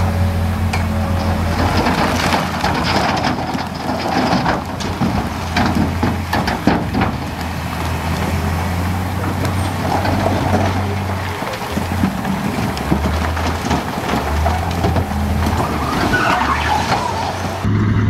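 Diesel engine of a Shantui DH17C2 bulldozer running steadily under load while stones clatter and knock as they are pushed. In the second half the engine note wavers and dips.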